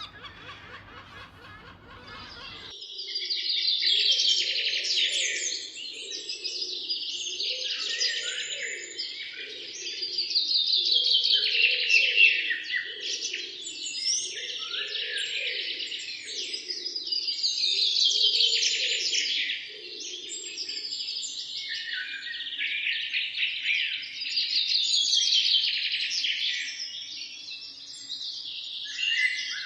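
Songbirds singing, with long chirping and trilling phrases that swell and fade about every six seconds, over a lower pulsing call. It starts abruptly about three seconds in, after a fainter, different ambience.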